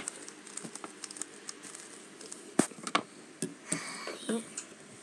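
Hands handling a plastic Valk 3 Power M speed cube and setting it down on paper: scattered light clicks and taps, two sharper clicks between two and a half and three seconds in, and a brief rustle near four seconds.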